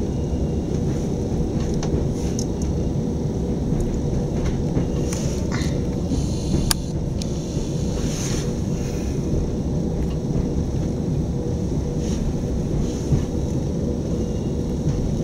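Inside a moving Electrostar electric train: a steady low rumble of wheels on track, with a faint steady hum and a few light clicks.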